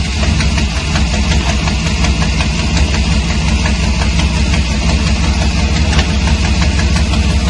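Chevrolet Camaro engine idling steadily, its exhaust pulsing in a rapid, even rhythm, which the owner suspects is an exhaust leak.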